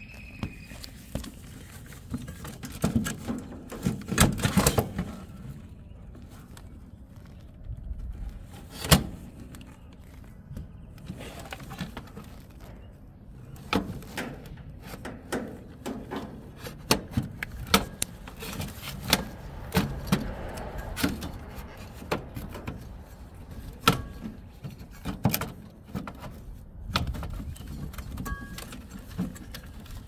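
Irregular clicks, knocks and light rattling of parts being handled as a replacement fan control board is fitted back into a mini-split unit, with a sharp knock about nine seconds in.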